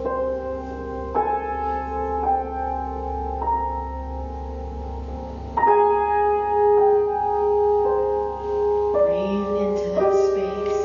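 Piano played slowly and softly, new notes struck about once a second and left to ring, with a louder chord about halfway through, over a steady low didgeridoo drone.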